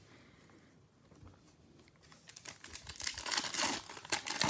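Foil wrapper of a trading-card pack crinkling and tearing as it is opened, in irregular crackles that start about two seconds in and grow louder.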